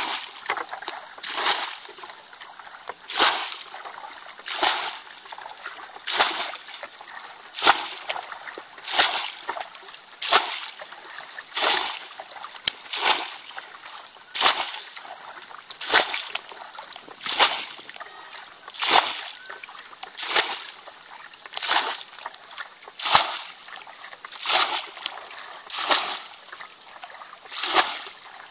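Plastic bucket scooping muddy water from a shallow ditch and tipping it out, bailing the ditch dry: a splash about every second and a half, very regular.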